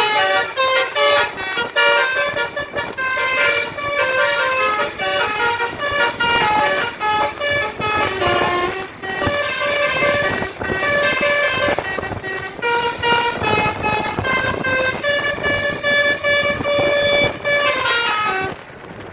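Basuri telolet bus horn, a multi-tone horn, playing a quick melody of short notes that step up and down, ending with a falling slide of pitch near the end.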